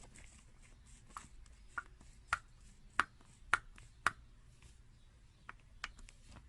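A series of sharp, light clicks or taps. About six come roughly half a second apart in the middle, then two fainter ones near the end. No engine is running.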